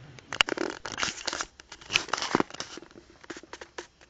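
A sleeping man snoring hard: loud, rough noisy snores coming in bursts, with clicks mixed in.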